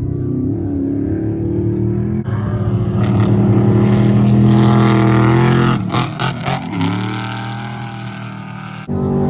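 Off-road race truck engine running hard as it passes, loudest about halfway through. A choppy burst of revs follows, then the pitch falls away. Near the end the sound cuts suddenly to another truck's engine.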